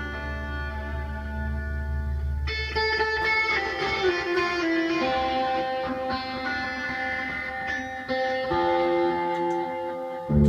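Guitar music: long held notes that shift in pitch every second or so, over a low drone that drops out about two and a half seconds in.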